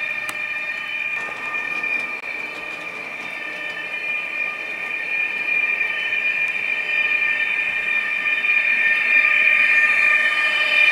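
Factory sound decoder of a Trix BR 147 (TRAXX AC3) H0 model electric locomotive playing its electric-drive whine through the model's small speaker: a steady high whine of several tones over the light rolling noise of the train on the track. It grows louder through the second half as the locomotive comes closer.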